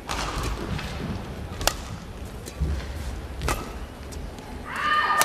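Badminton rackets striking the shuttlecock in a rally: three sharp hits about two seconds apart, then a short high squeak near the end, a shoe gripping the court mat.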